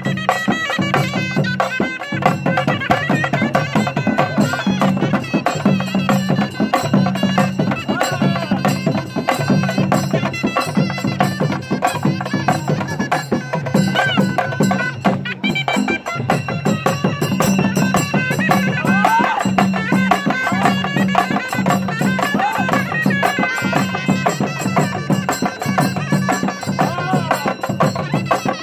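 Traditional folk music: a bending melody over a steady low drone, with percussion throughout.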